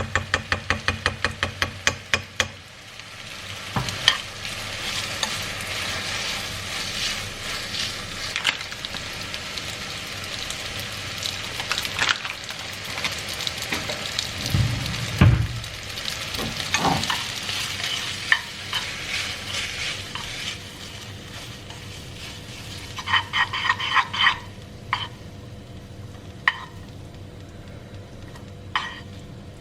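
Pasta and broccoli in pesto and oil sizzling in a frying pan while being stirred, with a utensil clicking and scraping against the pan. A fast run of even clicks opens it; the sizzle dies down after about twenty seconds, leaving a few sharp taps.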